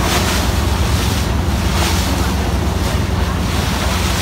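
Motorboat running fast over choppy river water: a steady engine drone under wind buffeting the microphone, and spray and waves hitting the hull in surges about every half second.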